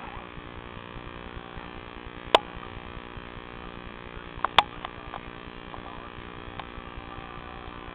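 Steady electrical hum over room noise, with a few sharp clicks: one about two and a half seconds in, a close pair a little after four and a half seconds, and fainter ones later.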